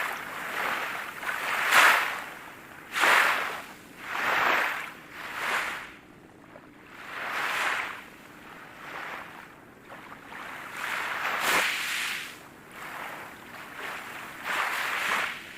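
Rushing, breathy noise coming in short irregular surges, roughly one every second or two.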